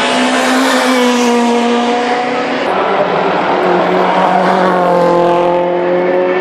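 Rally car engine running at high revs: the pitch sinks for the first couple of seconds, breaks abruptly, then climbs steadily before a sudden gear change near the end.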